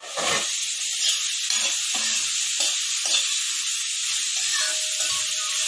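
Sliced onion and capsicum sizzling in a hot kadhai while a metal spoon stirs them, scraping across the pan several times in the first few seconds.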